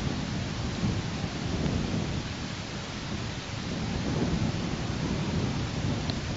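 Wind buffeting the nest camera's microphone: a gusting low rumble over a steady hiss.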